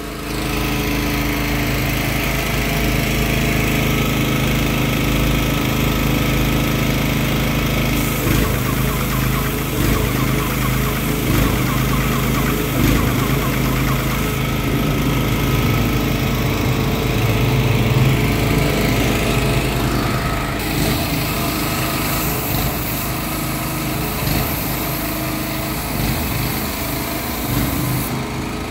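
Portable petrol generator running steadily as it powers an airless paint sprayer, with the hiss of the spray gun as paint goes onto a concrete pillar.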